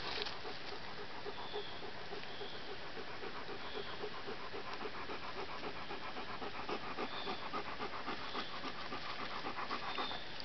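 Large black Poodle panting rapidly and evenly, right at the microphone.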